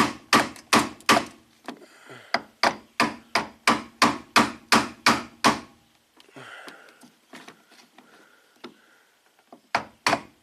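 Rapid repeated knocking, about three or four blows a second, as the seized automatic seat belt's drive cable in a 1991 Ford Probe is beaten back into its rail. The knocking comes in runs with a quieter pause of faint scraping in the middle, then starts again near the end.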